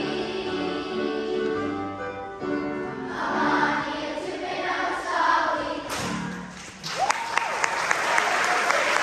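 Children's choir singing the last phrases of a song, the voices dying away, then an audience bursting into applause about seven seconds in.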